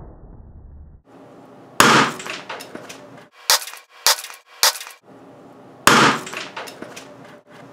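An overheated filter capacitor from an old 8-track player bursting under pressure: a sudden loud bang that trails off over about a second, heard twice, with three short sharp clicks between the two bangs.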